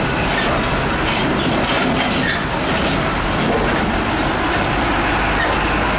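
Old diesel tractor-trailer truck running as it pulls slowly past, its engine rumbling under a steady clatter of rattles and clanks from the trailer and container bouncing over a rough road.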